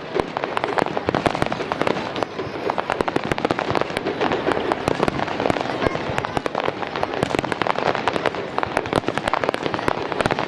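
Fireworks barrage: many shells bursting together in a dense, unbroken stream of bangs and crackling.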